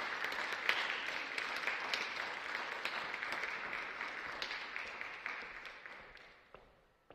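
Audience applauding, the clapping thinning out and dying away over the last two seconds.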